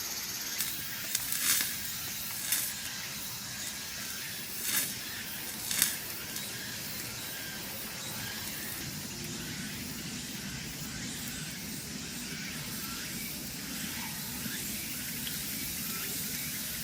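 Steady sizzling hiss of meat grilling on a camp barbecue grill, with a few short sharp clicks and knocks in the first six seconds.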